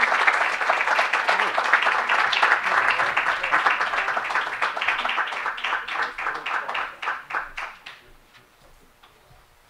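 Audience applauding, a dense patter of clapping that thins into scattered separate claps and dies away about eight seconds in.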